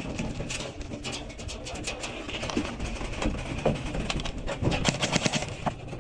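Scattered sharp pops and clicks, densest in the second half, typical of airsoft guns firing across the field, over a steady low rumble of wind on the microphone.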